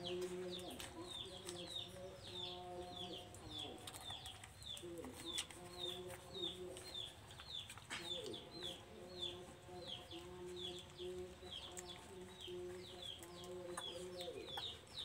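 Farmyard chickens: a steady run of short, high, falling peeps, two or three a second, over lower drawn-out clucking calls that come again and again.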